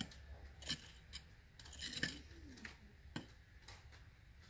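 Small metal hand rake scratching and scraping in loose soil, a handful of faint, sharp scratchy clicks at irregular intervals.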